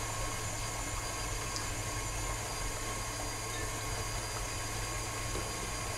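Electric tilt-head stand mixer running steadily as it beats cream cheese in its glass bowl: an even motor whir with a thin steady whine.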